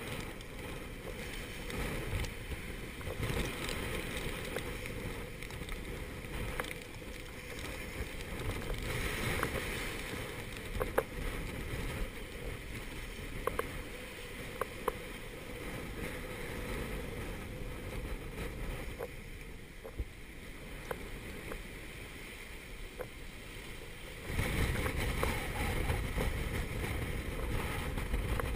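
Gale-force wind rumbling on the microphone and breaking seas rushing past a sailboat's stern as she runs downwind, the water noise swelling several times and loudest near the end. A few sharp clicks are heard through it.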